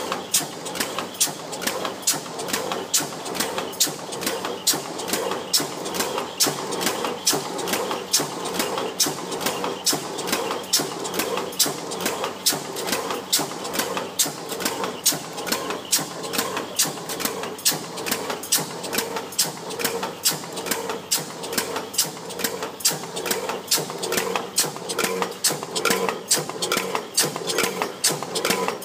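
Stamping press running a progressive die on 0.32 mm aluminium strip fed from a coil: a sharp, even clack at every stroke, roughly three a second, over the steady hum of the running press.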